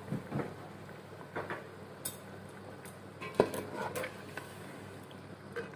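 A white slotted spatula stirring potato wedges in water in a cooking pot, with scattered light knocks and scrapes against the pot, the loudest about three and a half and four seconds in.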